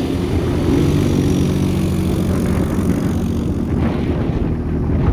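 ATV engine running while riding, its note holding fairly steady.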